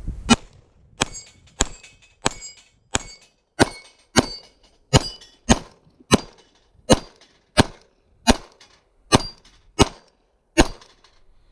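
Glock 19 9mm pistol fired in steady slow fire, sixteen shots about two-thirds of a second apart. Several shots are followed by the brief ring of a struck steel plate.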